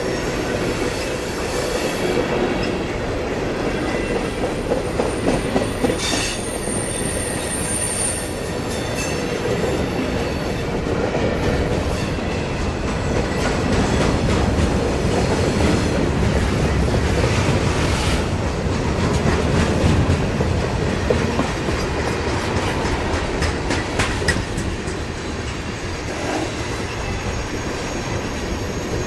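Freight cars rolling past close by: a steady rumble of steel wheels on rail, with clicks as the wheels cross rail joints and a few brief high-pitched wheel squeals.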